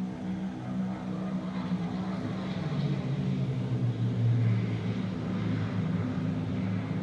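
The sound installation playing through outdoor speakers among the trees: a steady low drone of several held tones, with the lowest deepening about three seconds in, like an engine or aircraft drone.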